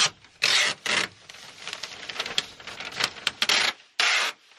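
Tyvek tape being pulled off its roll and pressed onto Tyvek house wrap: a run of short rasping rips as the tape peels off, with crinkling of the wrap. The loudest rips come about half a second in and just after four seconds.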